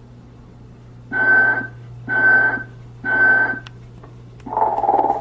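Telco animated Mrs. Santa Claus decoration playing its sleeping-snore sound effect: three short breathy puffs about a second apart, each with a steady whistle-like tone, then a rasping snore starting again near the end, over a steady low hum.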